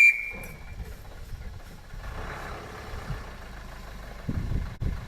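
A whistle blast cuts off at the very start, then a Land Rover's engine runs at low revs on the off-road course, with a few low thumps near the end.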